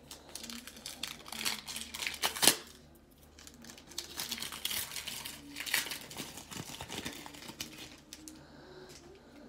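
Plastic-foil baseball card pack wrapper being torn open and crinkled in the hands. There are two spells of crinkling, with one sharp, loud rip a little before the midpoint.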